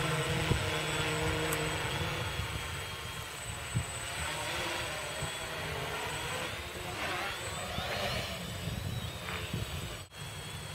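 Quadcopter's electric motors and propellers whining as it hovers and manoeuvres, the pitch drifting up and down as the motors correct its position, over a low rumble of wind on the microphone.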